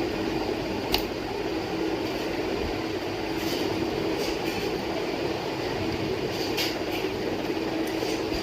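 A steady rumbling hum, with a few short sharp clicks as a plastic pry tool works the laptop's back-cover clips loose.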